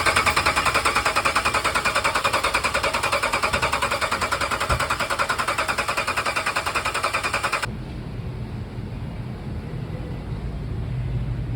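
A 2014 Ram 1500's 5.7-litre HEMI V8 running with a loud, rapid, even ticking clatter, about seven ticks a second: the sound of a failed lifter on a wiped camshaft lobe behind the cylinder 2 misfire. About eight seconds in it cuts off suddenly to a quieter, low engine rumble.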